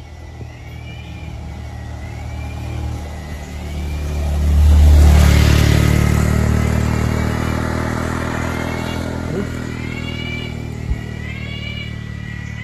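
A motor vehicle's engine passing by: a low, steady drone that grows to its loudest about five seconds in, then slowly fades. A short, arching chirp repeats about once a second at the start and again near the end.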